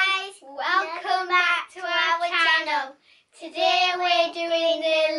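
A child singing unaccompanied in a high voice: several short sung phrases with held notes, with a brief pause about three seconds in before a longer phrase.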